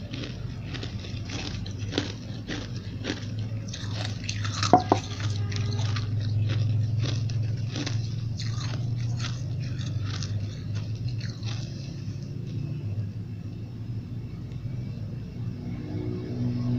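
Ice chunks being bitten and chewed with hard, crunchy strokes, about two a second, with a sharp knock that rings briefly about five seconds in. The crunching thins out and stops about twelve seconds in, leaving a steady low hum.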